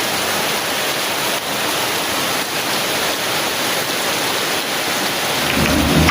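Heavy rain pattering steadily on a thin tin umbrella, an even hiss with a few faint drop knocks. Near the end a low rumble begins to build.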